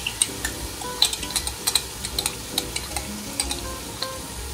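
Onion and garlic frying in oil in a stainless steel pot, a steady sizzle with scattered sharp crackles and pops.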